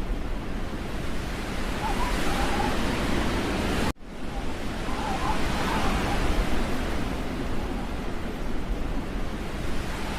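Steady rushing wind noise, broken by a sudden brief cut-out about four seconds in.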